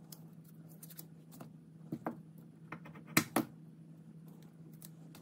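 Green tape being peeled and picked off a metal lathe gib by hand: scattered small crackles and clicks, with two sharper clicks a little past three seconds in.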